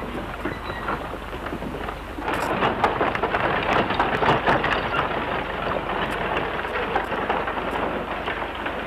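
Horse-drawn wagon rolling along a dirt street: a dense clatter of hooves and iron-rimmed wooden wheels, growing louder about two seconds in.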